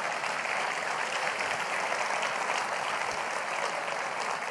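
Large audience applauding, a dense steady patter of clapping that eases off slightly near the end.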